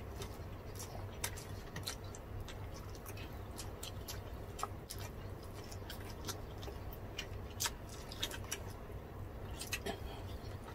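Close-miked mukbang eating: two people chewing and smacking their lips on grilled pork belly and roast chicken eaten by hand, heard as scattered wet clicks and smacks at an irregular pace over a low steady hum.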